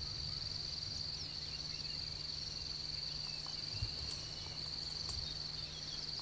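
Insects trilling steadily at a high pitch over a low, steady rumble.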